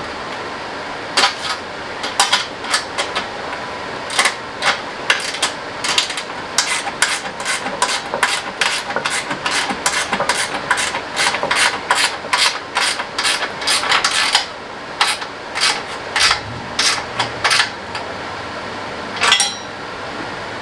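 A run of irregular sharp knocks and taps from hand tools and parts being worked on, several a second at their busiest, stopping after about 18 seconds with one last knock. A steady hum runs underneath.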